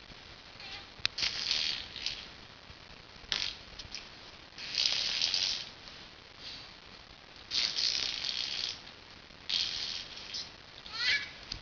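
A baby making wet, spluttering sounds with her tongue and lips in short separate bursts, about six of them, with a brief rising squeak near the end.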